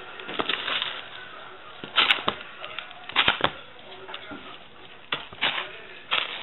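Hands wrapping raw bacon around a chicken thigh: irregular rustling and soft slapping handling noises with a few sharp clicks, several short bursts a second or so apart.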